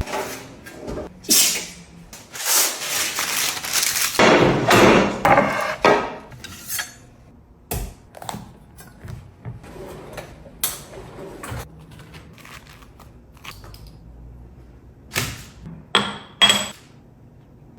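Kitchen food-preparation noise: a run of knocks, clatter and scraping of utensils and dishes, busiest in the first six seconds, then scattered knocks, with a few sharp ringing clinks near the end.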